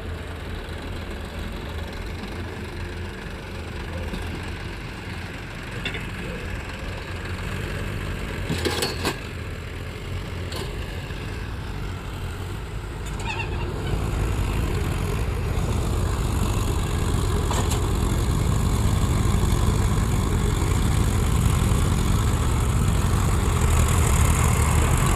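Heavy vehicle engine running steadily, getting louder a little past halfway, with a brief sharp noise about a third of the way in.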